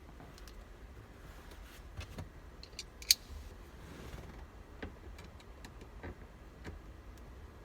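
Scattered light metallic clicks and clinks of a screwdriver and its bits being handled while fitting a T30 bit, with one sharper click about three seconds in.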